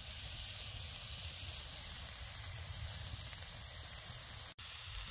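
Turkey breast schnitzel and a vegetable pan sizzling on a folding grill over a campfire: a steady hiss that cuts out for an instant near the end.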